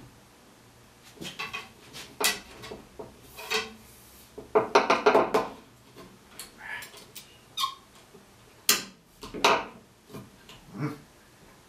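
Wooden spindles being worked into the glued holes of a Windsor chair seat: a series of irregular wooden knocks, clatters and rubbing, busiest about halfway through.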